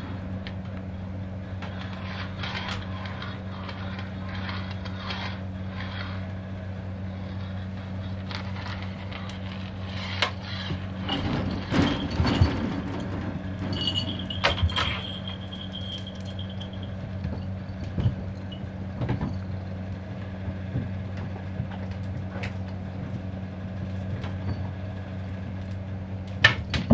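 Wooden sliding door rattling and rumbling in its track as cats push it open, with scattered light knocks and taps, over a steady low electrical hum.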